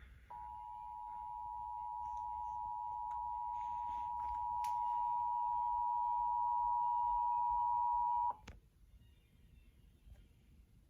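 Emergency Alert System two-tone attention signal, the 853 and 960 Hz tones sounded together as one steady tone, marking a Required Monthly Test. It grows slightly louder as it goes and cuts off abruptly after about eight seconds.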